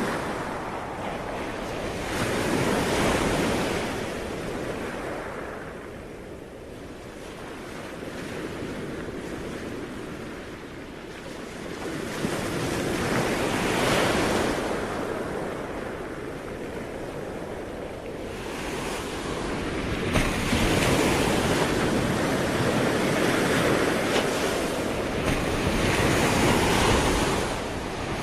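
Ocean waves breaking and washing up a shore, the surf swelling and falling away in slow surges. There are separate swells a few seconds in and about halfway through, then a longer, louder stretch of surf in the last third.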